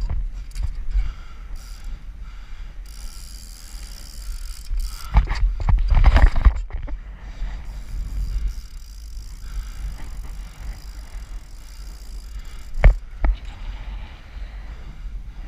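Trials bicycle rolling over paving, with steady wind rumble on the action camera's microphone. About five seconds in comes a cluster of knocks and rattles as the bike hits the ground, and a single sharp knock a couple of seconds before the end.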